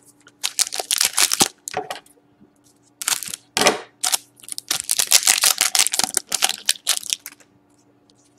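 A hockey trading-card pack's shiny wrapper being torn open and crinkled by hand, in several crackling spells with short pauses between them.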